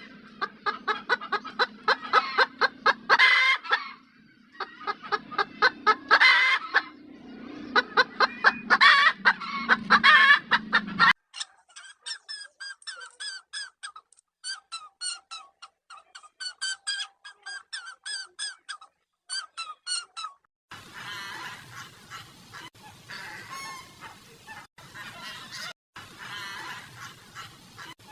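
A run of bird calls. First, about eleven seconds of loud, fast, repeated fowl calls; then high, quick chirping in short bursts; then, for the last several seconds, fainter calls over a noisier background.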